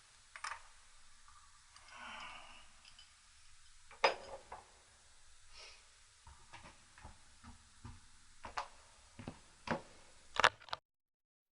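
Scattered clicks and light metallic taps of hand tools and parts being handled, irregular, with two sharper knocks, one about four seconds in and one near the end, before the sound cuts off abruptly.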